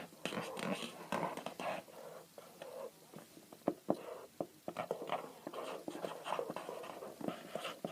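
Pens scratching and scribbling on paper in short, irregular strokes, with a few sharp taps of the pen tip.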